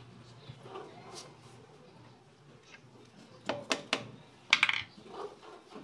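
A few sharp light metal clinks and taps, bunched about three and a half to five seconds in, from screws and a tool being handled against a motorcycle engine's alloy side cover.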